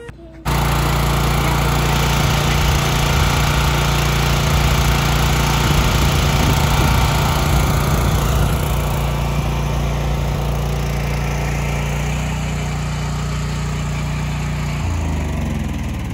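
A truck-powered borehole drilling rig running, its engine note steady with the drilling machinery going. It starts suddenly about half a second in, and the engine note drops around twelve seconds in and slides lower again near the end.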